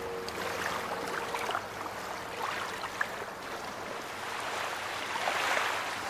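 Ocean surf washing, a steady rushing hiss that swells near the end, with a few faint high chirps.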